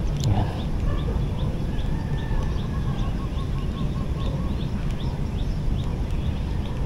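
Birds calling: a short, high, falling chirp repeated two or three times a second, with a quick run of lower notes midway through, over a low rumble.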